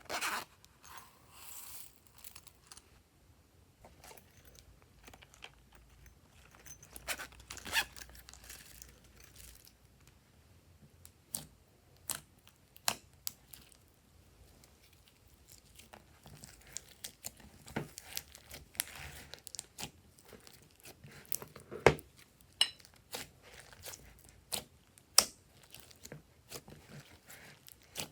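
Hands working glossy slime: sticky crackling and squelching, broken by sharp irregular pops and clicks as the slime is pressed, stretched and folded.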